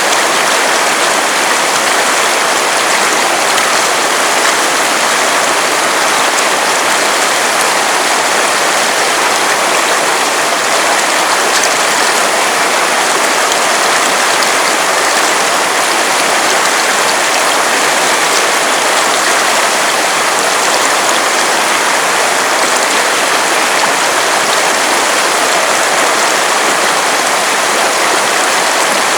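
River water running steadily, a dense even rush over the stones.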